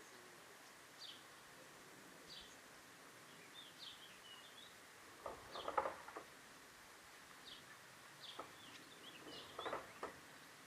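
Birds calling outdoors: one bird repeats a short, high, falling note about every second and a half, with bits of twittering between. Two short bursts of knocking or clatter, about halfway through and near the end, are the loudest sounds.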